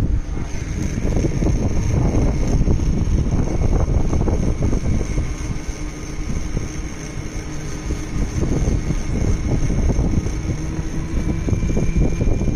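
Hero Vida electric scooter in motion, with a steady high-pitched whine over gusting wind rumble on the microphone: the rear-wheel noise the owner is showing. A slightly higher whine joins near the end.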